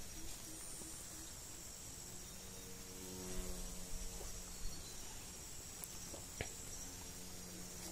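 Faint outdoor ambience of a steady high insect chirring. A low buzzing hum comes in about two and a half seconds in and fades out about two seconds later.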